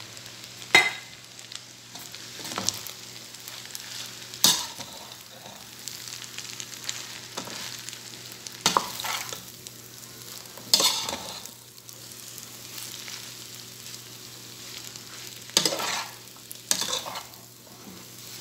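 Spaghetti and vegetables sizzling in a pot while being stirred and tossed with a slotted metal spatula. Several sharp knocks and scrapes of the spatula against the pot come every few seconds over a steady frying hiss.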